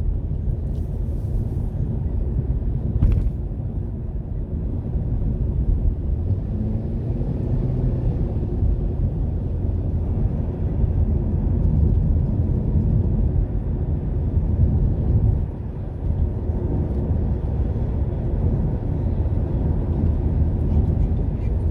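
Steady low rumble of a car driving, engine and tyres on the road heard from inside the cabin, with one brief click about three seconds in.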